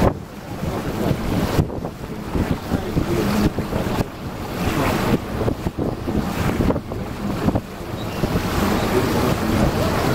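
Wind gusting on the microphone aboard a moving river cruise boat, over the boat's engine and water washing along the hull.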